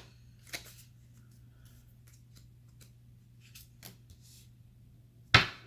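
Tarot cards being handled and drawn from the deck: faint rustles and light clicks, then one sharp, loud slap near the end. A low steady hum runs underneath.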